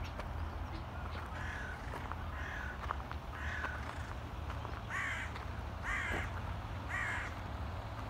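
A crow cawing: six caws about a second apart, the last three louder, over a low steady rumble.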